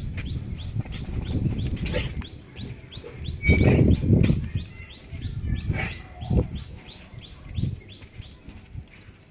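A small bird chirping over and over, about three short chirps a second, over low rumbling thumps and rustling that are loudest a few seconds in.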